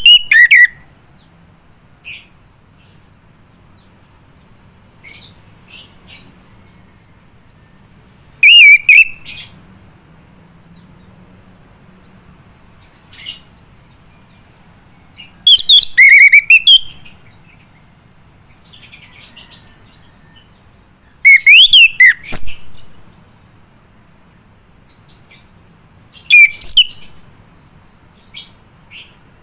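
Male chestnut-capped thrush (anis kembang) singing: loud, short phrases of quick sweeping whistles and trills every few seconds, with short single notes between them.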